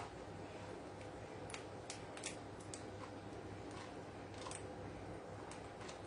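Faint, irregular sharp clicks and taps from two Indian ringneck parakeets at their plastic food bowl in a wire cage, over a steady low hum.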